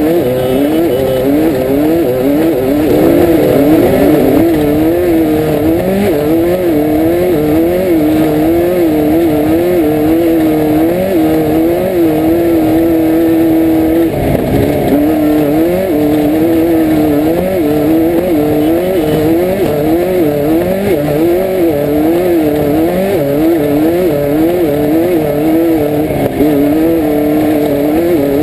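Class 5/1600 Baja Bug's air-cooled 1600 cc Volkswagen engine racing off-road, its revs rising and falling about once a second, heard loud from inside the car over a constant low rumble. The engine briefly drops away about halfway through before picking up again.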